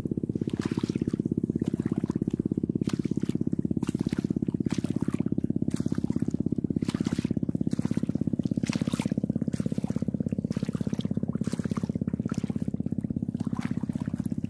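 Footsteps squelching and splashing through shallow water on wet tidal sand, roughly a step a second. A steady low rumble runs under them.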